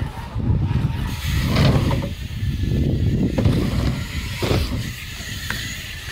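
BMX bike rolling over the ramps with a steady low tyre rumble, broken by several sharp knocks from the bike's take-offs and landings.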